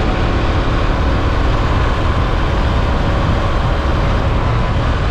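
Steady wind and road noise on a helmet-mounted microphone while riding, with a Yamaha Lander 250's single-cylinder engine running underneath at an even pace.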